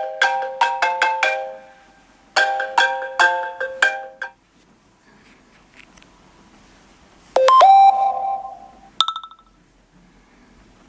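iPhone ringtones playing: a quick run of bright chiming notes, played twice, then after a pause a short tone that slides up and holds, and a brief buzzing blip near the end.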